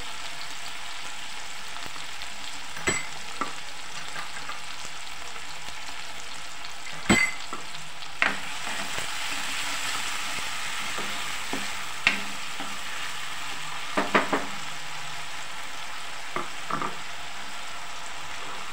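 Chopped tomatoes, green chillies and cumin frying in ghee in a metal kadhai with a steady sizzle, while a spatula stirs and scrapes the mix, knocking sharply against the pan several times, including a quick run of three knocks about two-thirds of the way through.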